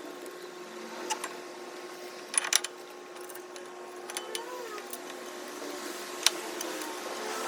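Several sharp clicks or knocks, the loudest a quick cluster about two and a half seconds in, over a steady hum with one held tone.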